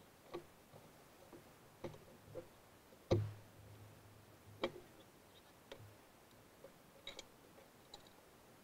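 Faint, scattered clicks and knocks of a German pinscher's claws and paws on car seats and interior trim as it clambers about inside a car, with one louder thump about three seconds in as it comes down into the back seat.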